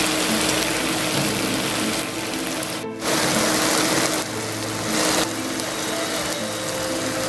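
Soy-braised pork back ribs sizzling and bubbling in a frying pan as the sauce reduces, with a brief break just before three seconds in and a louder stretch right after.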